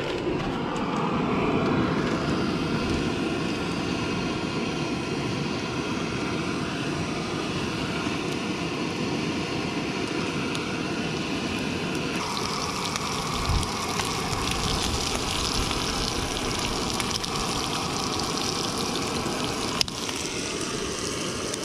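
Portable canister gas stove burner running steadily under a frying pan as abalone cooks in oil. About halfway through, the sizzle grows brighter as more pieces go into the pan, with a couple of small clicks of utensils.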